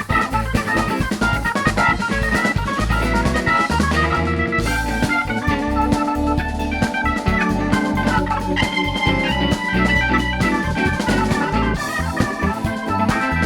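Instrumental band music: organ-like keyboard chords held over a steady drum kit beat, with no singing.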